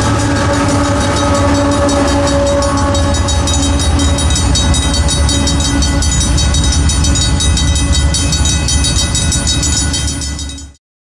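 BNSF freight train of tank cars rolling past: a steady, loud rumble with a few held tones over it, fading and cutting off near the end.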